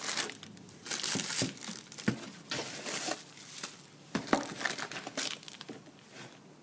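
Bubble wrap and plastic packaging crinkling and rustling as they are handled in a cardboard box, with a few sharp knocks, the loudest a little over four seconds in.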